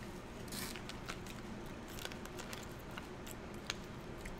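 Faint crunching of a Cheeto-like puffed corn snack being bitten and chewed: scattered small crackles and clicks, with a brief crunch about half a second in and a sharp click near the end.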